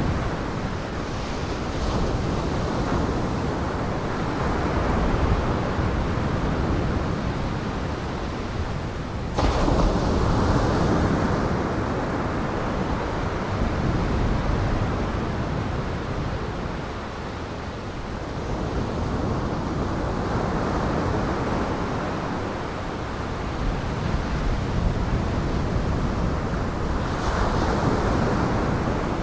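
Heavy surf and wind: a continuous rushing of breaking waves that swells and eases every few seconds. It jumps suddenly louder about nine seconds in.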